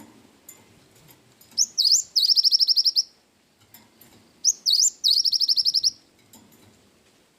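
Cinereous tit (gelatik batu) singing in two loud, high phrases. Each phrase opens with two quick upward-sweeping notes and runs into a fast trill of identical repeated notes, roughly a dozen a second. The song is broken by gaps of quiet background.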